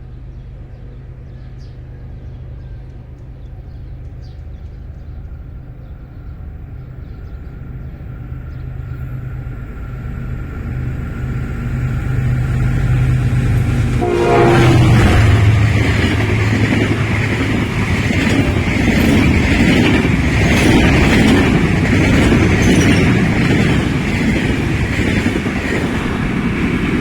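A diesel-hauled passenger train passing at high speed. The locomotive's low engine hum grows steadily louder as it approaches, and about halfway through it gives way to the loud rumble of the coaches rushing past, with sharp wheel clicks over the rail joints.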